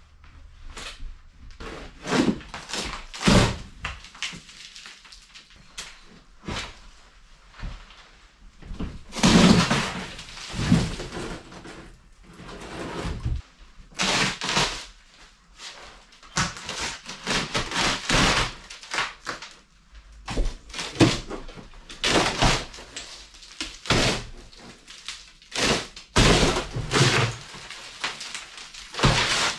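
Thin ceiling boards being pried loose and torn down with a crowbar: a long, irregular run of cracks, knocks and thuds as the panels split and come away, with a short rush of falling debris about nine seconds in.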